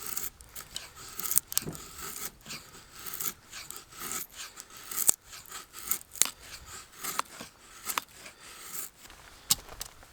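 A cooking utensil scraping and tapping against a pan in short, irregular strokes.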